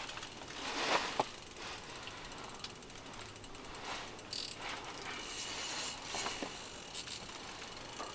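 Fishing reel clicking in fast runs as line is worked against a heavy hooked fish.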